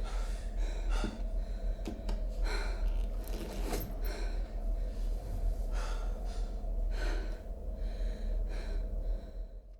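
Film soundtrack played through home-theatre speakers and subwoofers: a character's repeated heavy gasping breaths over a steady deep bass rumble, fading out near the end.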